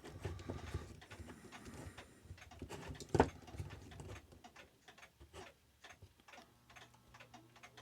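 Irregular small metallic clicks and ticks from working the spring click and ratchet of a clock movement's mainspring with a letdown tool, with one louder click about three seconds in.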